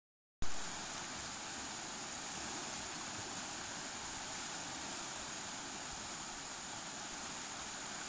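River water rushing steadily over shallow rapids, a constant even hiss-and-roar that starts abruptly about half a second in.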